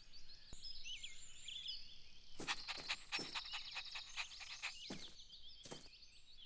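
Faint cartoon birdsong chirping, with a cartoon puppy panting in quick short breaths through the middle.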